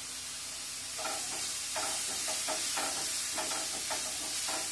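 Sliced onions and green chillies sizzling in hot oil in a frying pan, softening with salt. From about a second in, a wooden spatula stirs them with a run of short scrapes against the pan.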